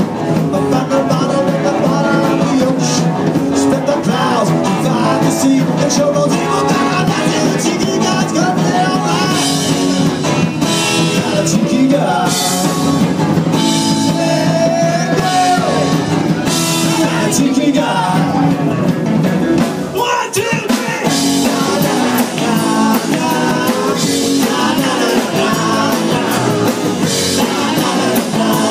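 Live rock band playing: electric guitars and a drum kit with a lead singer, recorded on an iPad's microphone in a small club.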